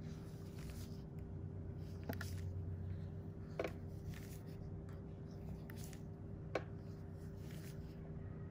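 Steady low electrical hum with a faint steady tone above it, broken by three short sharp clicks about two, three and a half, and six and a half seconds in.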